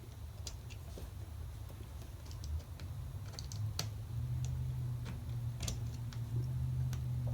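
Irregular light clicks and taps of a small flathead screwdriver working a concho screw into its post, over a low steady hum that gets louder about halfway through.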